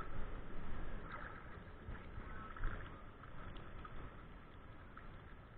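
Shallow river water sloshing and splashing as a hand searches the bottom and pulls a bottle out, loudest in the first couple of seconds; then fainter water draining from the bottle.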